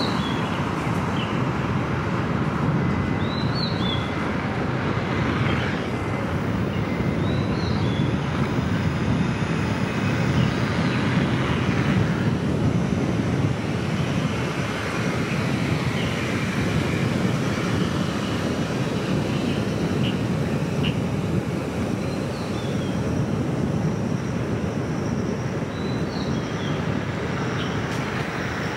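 A car driving at road speed, with steady road and tyre noise. A few short bird chirps come through now and then.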